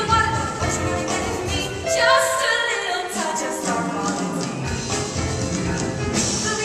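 Live musical-theatre song performed on stage: singing over full band accompaniment, with the bass dropping out about three seconds in and returning near five seconds.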